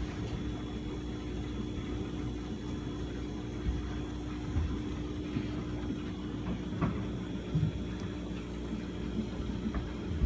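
Steady low hum of an aquarium air pump driving a sponge filter, with the air bubbles rising through the tank water.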